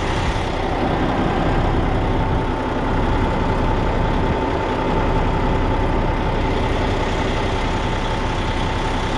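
Heavy diesel engine running steadily at idle, with a steady whine alongside it.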